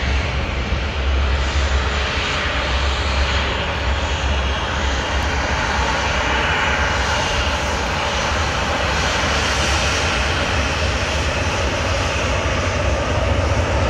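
Jet airliner's engines running steadily with a loud rushing roar and a deep rumble underneath.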